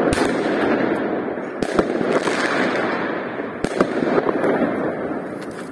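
Homemade fountain firework of ammonium nitrate, charcoal and magnesium shavings burning with a steady rushing hiss, broken by several sharp pops. It eases off slightly near the end.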